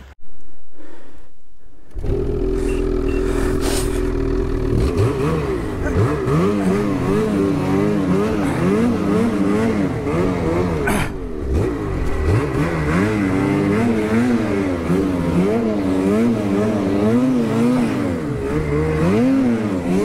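Ski-Doo snowmobile engine under way, its revs rising and falling again and again as the throttle is worked. About two seconds in it comes in after a brief low rumble.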